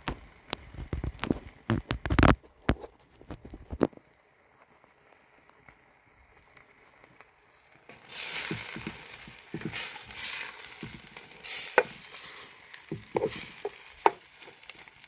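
Beef steak pieces cooking in their own juice in a stone molcajete over a wood fire. Some knocks and handling thumps come in the first two seconds, then quiet, then a steady sizzle with scattered pops starts about halfway through.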